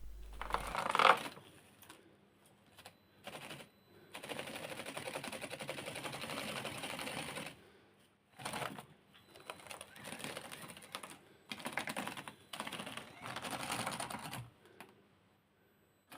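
Redcat Ascent18 micro RC crawler's motor and gearbox whirring with a rapid chatter in stop-start bursts as the throttle is worked on a steep climb.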